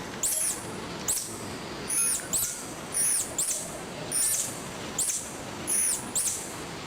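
Tarsier calls: a series of short, very high-pitched chirps, about ten of them, each coming half a second to a second after the last.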